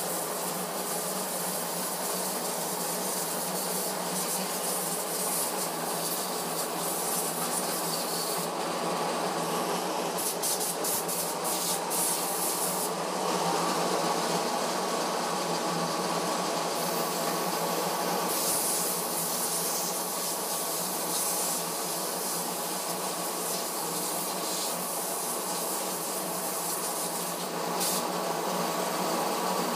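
Diesel injection pump test bench running an Isuzu 4JB1 injection pump, a steady mechanical whirr with a hiss of fuel spraying through the test nozzles. The sound holds even throughout, swelling slightly midway.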